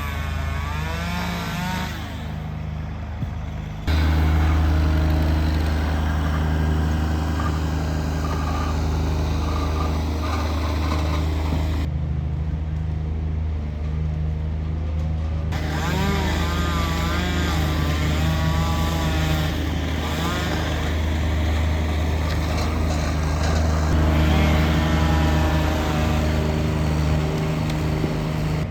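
A large engine on tree-removal equipment running steadily with a deep, even hum. It gets louder about four seconds in, with higher wavering whining tones rising and falling above it at times.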